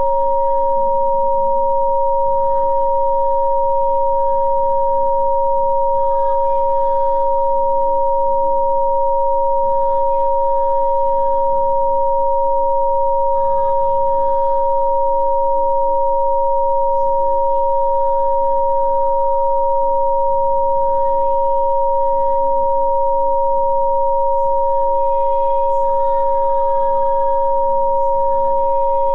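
Rife frequency-therapy tones: two steady, pure electronic tones, a middle one and a higher one, held together without change. Beneath them is a faint background pad that shifts every few seconds.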